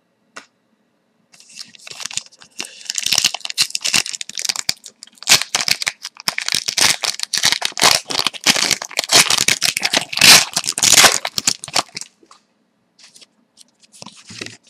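The plastic wrapper of a Score hockey card pack being torn open and crinkled by hand: a dense run of crackling that lasts about ten seconds and stops near the end, followed by faint rustles of the cards being handled.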